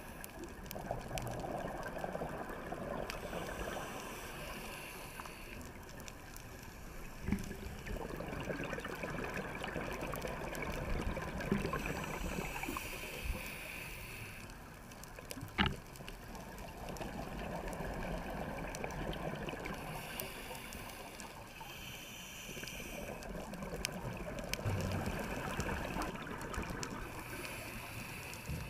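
Muffled underwater sound of a scuba diver breathing through a regulator, the exhaled bubbles gurgling in slow surges every several seconds. A couple of sharp clicks stand out, the loudest about halfway through.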